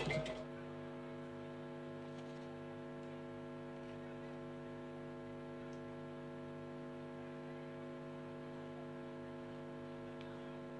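Steady electrical hum with a buzzy stack of evenly spaced overtones, unchanging in pitch and level, left on the feed's audio in place of the programme sound, typical of a dropped live broadcast signal. A brief burst of louder sound cuts off about half a second in.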